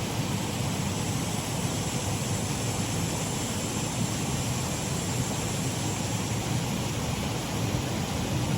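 Shallow waterfall on a stream: water pouring and splashing over the drop as a steady, even rush.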